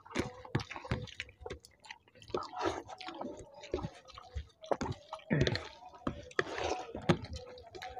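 Close-miked eating by hand: wet chewing and lip smacks, with the squish of fingers mixing rice and curry, in irregular clicks and short bursts.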